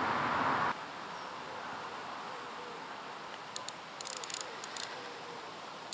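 A steady hiss stops suddenly under a second in, leaving quiet outdoor ambience. Around the middle comes a short, irregular run of sharp high clicks from a fishing reel being wound on a float rod.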